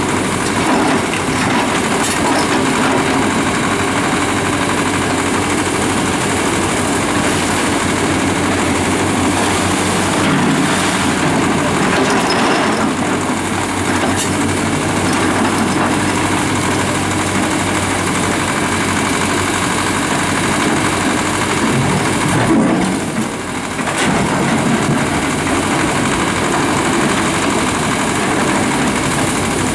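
Fiat-Kobelco hydraulic excavators working in gravel: the large diesel engines run steadily under load while the boom and bucket dig and lift. The sound drops briefly about two-thirds of the way through.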